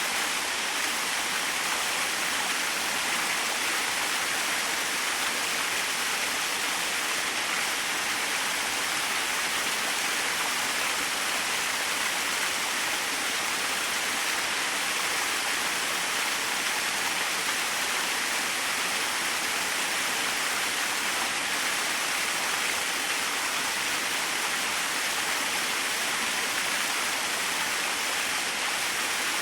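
Small waterfall splashing steadily, an even rushing hiss of falling water with no breaks or changes.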